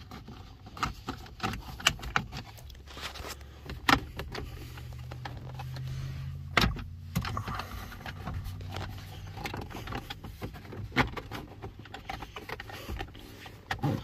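Plastic steering-column cover trim being handled and pried loose by hand: scattered clicks, knocks and light rattles, with a sharp knock about six and a half seconds in. A low steady hum runs underneath through the middle.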